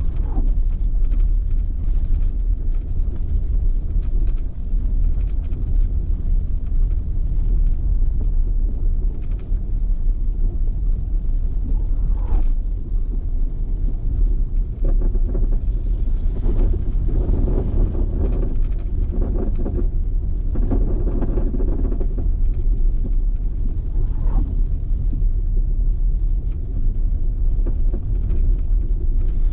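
Steady low rumble of storm wind and road traffic on an action camera's microphone, swelling for several seconds a little past the middle.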